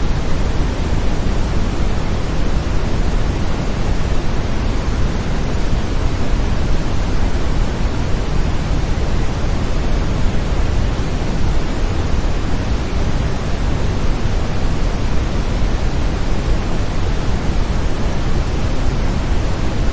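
Steady brown noise: an even, deep rushing hiss, strongest in the bass, that runs on without change.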